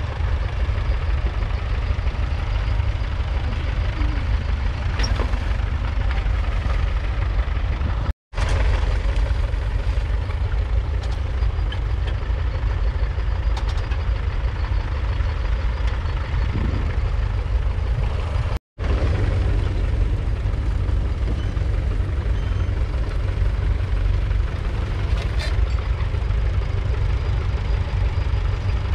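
1968 International Harvester B275's 2.3-litre four-cylinder diesel engine running steadily under load, pulling a two-furrow trailed plough. The sound cuts out for a split second twice, about 8 and 19 seconds in.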